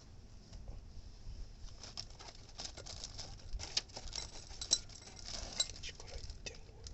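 Irregular light clicks and scrapes of hand tools working copper air-conditioner pipe during flaring, the sharpest clicks between about three and six seconds in.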